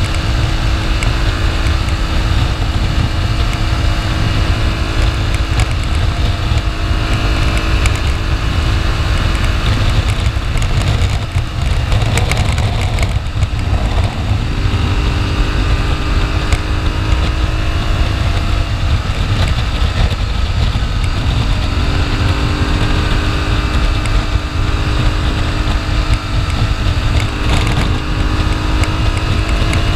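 Aprilia Tuareg 660's parallel-twin engine running while under way, mixed with wind and road noise. About halfway through, the engine note drops and shifts as the bike slows into a bend, then it settles to a steady pitch again.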